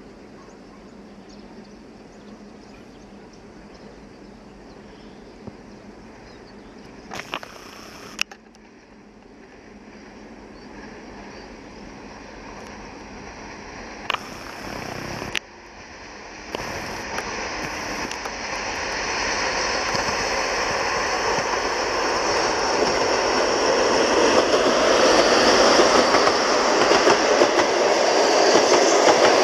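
TEP70K diesel passenger locomotive and its train approaching, the engine and rail noise growing steadily louder through the second half and loudest at the end. Two brief bursts of noise come before it, at about a quarter and halfway through.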